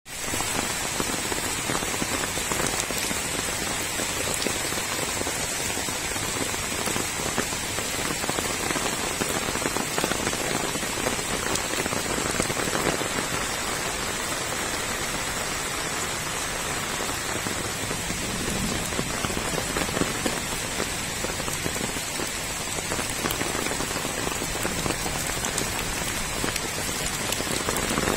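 Heavy rain falling steadily, splashing onto plant foliage and puddled ground.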